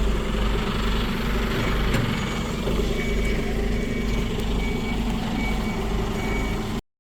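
Garbage truck engine running with a steady low rumble, its reversing alarm beeping repeatedly from about two seconds in. The sound cuts off suddenly just before the end.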